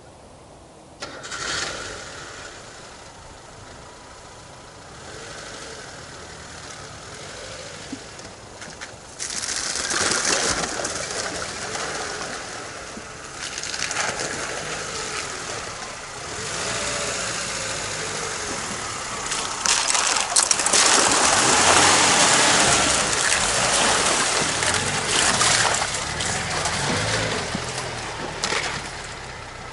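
Lada Niva's engine revving in surges as the car works its way along a muddy rutted track toward the camera and past it. It grows louder as it nears, is loudest about two-thirds of the way through, then eases off.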